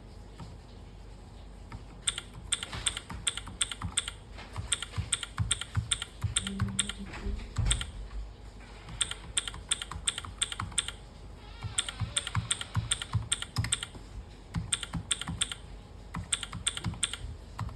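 Keychron V6 Max mechanical keyboard being typed on: runs of rapid key clicks in several bursts, with short pauses between them.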